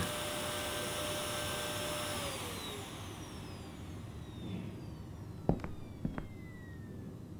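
Vacuum cleaner switched off, its motor noise fading as its whine glides down in pitch over a few seconds. Then a few separate knocks or steps.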